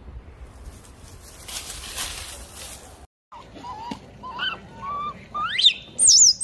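Baby macaque giving a run of short, high cries that sweep steeply upward in pitch, the shrillest and loudest near the end. Earlier, about two seconds in, comes a second or so of hissing noise.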